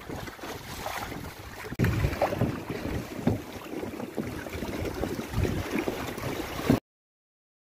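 Water slapping and splashing against the hull of a Hobie Tandem Island kayak-trimaran under way, with wind buffeting the microphone. It gets louder, with irregular low thuds, from about two seconds in. It cuts off abruptly near the end.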